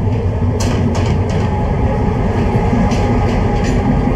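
Diesel locomotive hauling a passenger train as it pulls into the station alongside the platform: a loud, steady, deep engine-and-wheel rumble with a few sharp clicks.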